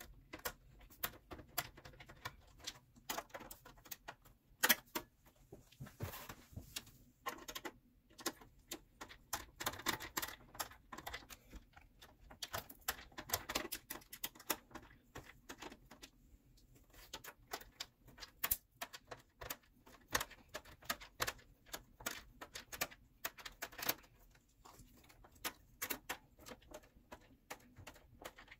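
Irregular small clicks, taps and rattles of hands handling cables and parts inside a desktop PC case, routing a cable past a radiator's fans, with one sharper knock about five seconds in.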